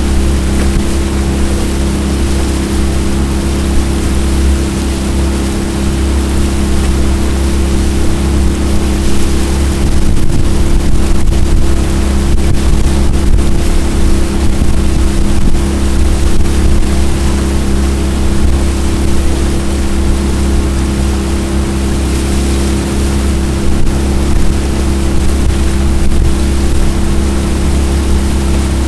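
Jon boat's outboard motor running steadily at cruising speed, a constant low drone, with water noise from the hull moving through the river.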